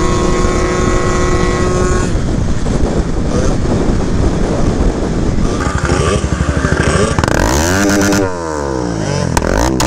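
Two-stroke scooter engines running at steady speed on the road. About seven seconds in the engine pitch falls as they slow to a stop, and near the end the engines rev up and down.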